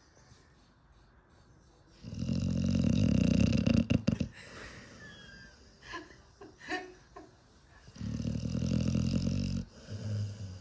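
Pit bull snoring in its sleep: two long, loud, low snores about six seconds apart, with a few short soft sounds between them and a third snore starting near the end.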